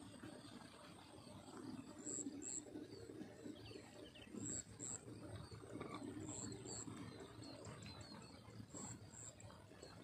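A small animal's high-pitched double chirp, repeated about every two seconds, with fainter chirps beneath it, over a low rustling background.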